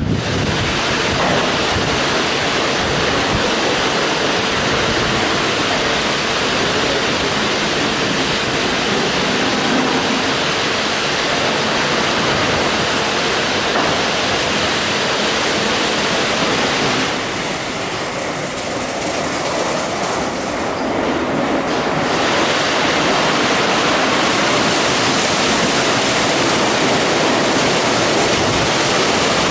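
WashTec EasyWash portal car wash at work: rotating brushes scrubbing a car amid water spray, giving a loud, steady rushing noise. The hiss eases for a few seconds about two-thirds of the way through, then comes back.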